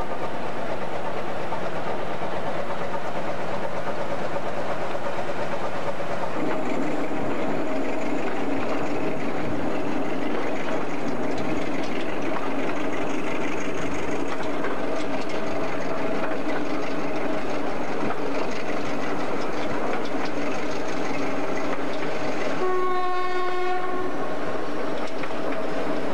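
Passenger train hauled by a General Electric U12 diesel locomotive, heard under way from aboard, with steady running noise. A steady tone joins in about six seconds in. Near the end the locomotive's horn sounds once, a single note held for about a second.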